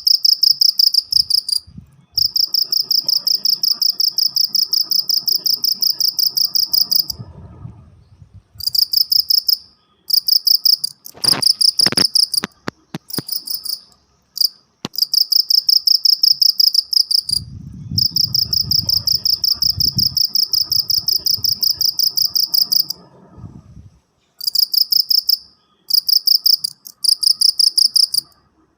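A cricket chirping loud and close, in trains of rapid pulses: some short bursts, some long trills lasting several seconds, with brief gaps between. A low rumble sits under two of the long trills, and a few sharp clicks come about halfway through.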